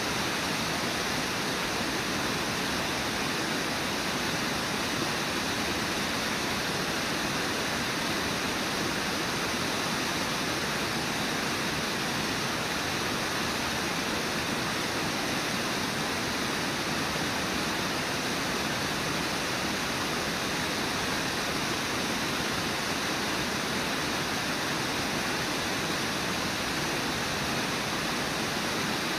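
Steady rush of a low river waterfall and whitewater rapids. It is an even, unchanging roar of falling and churning water.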